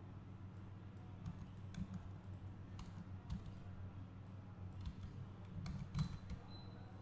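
Scattered computer mouse and keyboard clicks over a steady low hum, with the sharpest click about six seconds in.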